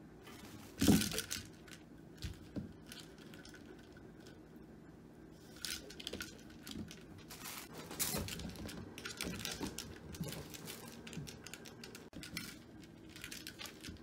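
A kitten playing with a spring-mounted feather cat toy on a carpeted base, giving scattered scratching, rustling and clicking. There is one sharp loud knock about a second in, and the scuffling gets busier from the middle on.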